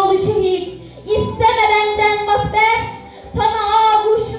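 A girl's voice singing long held notes into a microphone in phrases of about a second each, over backing music.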